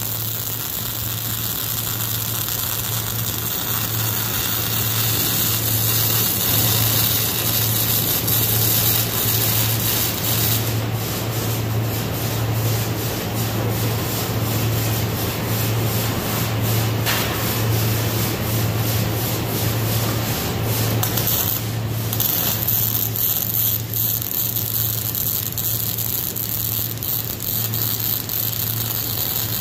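MIG welding arc crackling and hissing steadily, with a steady low hum underneath. Through the middle stretch the sound is broken by a run of short clicks and breaks.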